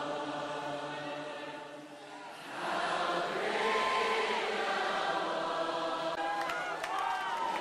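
Slow choral singing in long held notes. The singing dips briefly about two seconds in, then swells again.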